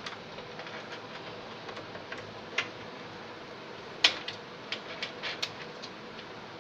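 Scattered light clicks and taps, the sharpest about four seconds in and a quick run of smaller ones after it, over a steady hiss: small hard computer parts being handled.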